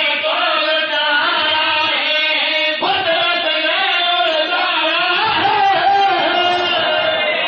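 Men's voices chanting together into microphones in a Shia majlis recitation, the zakir leading with backing singers, in long held, wavering melodic lines. A new phrase starts about three seconds in.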